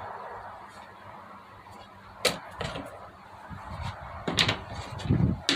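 A few sharp clicks and knocks of hands handling a cordless band saw, its blade covers off while a new blade is fitted, with some lower handling rumble near the end.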